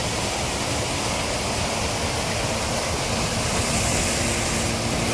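Artificial waterfall: water falling steadily in a constant, even rush. A faint low steady hum comes in about three and a half seconds in.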